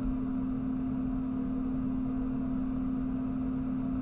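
A steady low hum with one constant tone over a faint rumble, even throughout.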